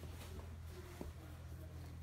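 Soft footsteps of Clarks Bushacre 2 leather desert boots with rubber soles on a wood-look floor: two light steps about a second apart, over a low steady hum.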